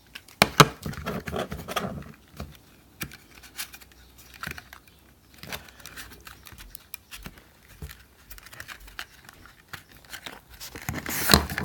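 Packaging being handled and torn open by hand, crinkling with scattered clicks, and a louder tear near the end.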